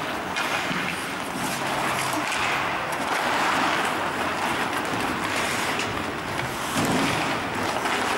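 Ice hockey game on an indoor rink: a steady hiss of skates carving the ice, with a few faint clicks of sticks and puck.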